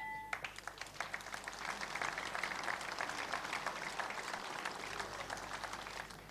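Boxing crowd applauding, a dense clatter of many hands clapping that stops near the end. The last of the ring bell's ring, marking the end of a round, fades just at the start.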